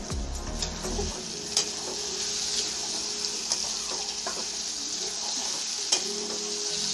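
Diced pumpkin and green chillies sizzling steadily in hot oil in a metal kadai, with a few sharp clicks and scrapes of a steel spatula stirring them against the pan.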